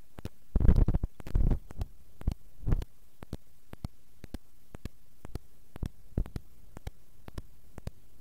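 Dull thumps of handling and movement against the trunk in the first three seconds, then scattered short clicks over a low steady background. The chainsaw is not running.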